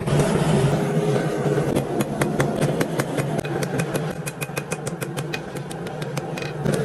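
Metal forging: a steady machine drone with a quick run of hammer strikes on metal, about four to five a second, some leaving a short ring, in the middle of the stretch.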